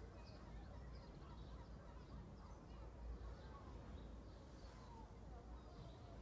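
Near silence: faint background tone with a low hum and a few faint, brief chirps.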